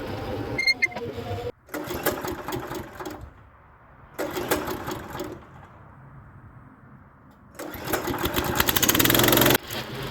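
Small gasoline engine running in several short stretches that start and stop abruptly, loudest near the end.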